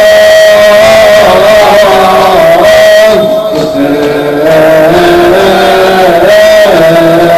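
Music from a Persian devotional song with no words: a sustained melody that slides between notes over steady backing, briefly dropping in level about three seconds in.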